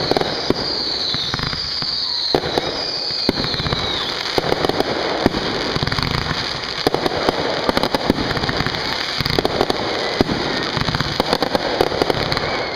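Fireworks going off in a rapid, dense barrage of bangs and crackling, with four falling whistles in the first few seconds.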